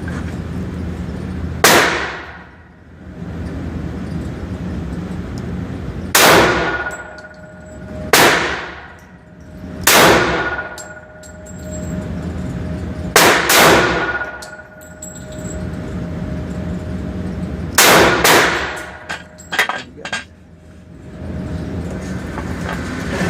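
.45 pistol fired about eight times at an unhurried pace, some shots single and some in quick pairs. Each report rings and dies away over a second or so, over a steady low hum.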